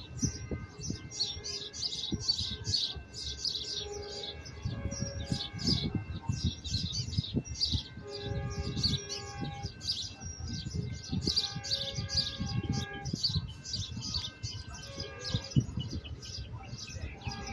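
Small birds chirping rapidly and without pause, over a low rumble.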